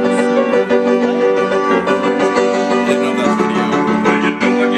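Upright piano played loudly, held chords changing about every second and a half.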